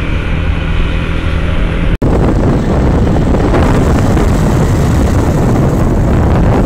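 Motorcycle running at road speed, its engine a steady hum. After a cut about two seconds in, loud wind buffeting on the microphone from riding.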